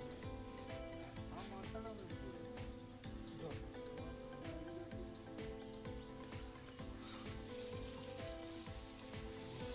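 Steady high-pitched drone of insects, with scattered faint clicks.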